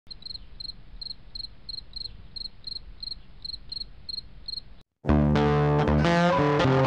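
High, evenly repeated chirps, about three a second, over a low rumble; they stop about five seconds in, and after a short gap loud electric-guitar music with distortion starts.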